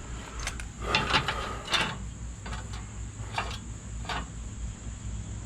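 Metal bumper bracket being slid and fitted into place: several short clunks and scrapes of steel on steel, spread through the few seconds.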